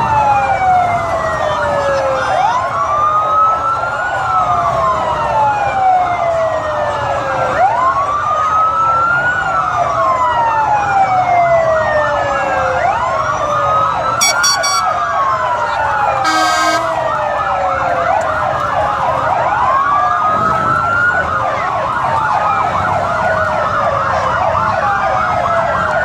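Several police vehicle sirens wailing at once, their rising and falling cycles overlapping about every two and a half seconds. Two short blasts cut in about halfway through.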